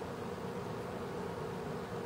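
Five-blade ceiling fan running steadily, a constant even hum.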